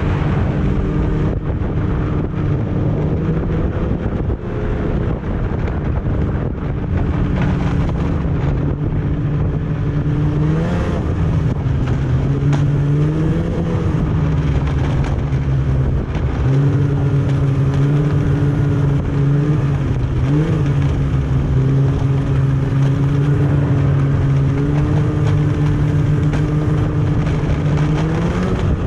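Snowmobile engine running steadily under way, its pitch briefly rising and falling about four times as the throttle is eased and reopened.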